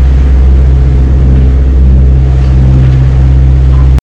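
Sailing catamaran's engine running steadily while motoring under way: a loud, steady low hum.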